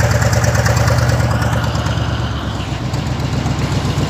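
A truck's diesel engine running at low speed as the flatbed creeps forward: a steady low hum with an even pulse, easing slightly after about two seconds.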